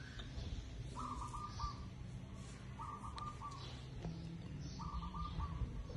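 A bird calling: a short stuttering phrase of notes on one pitch, repeated three times about two seconds apart, over a low steady hum.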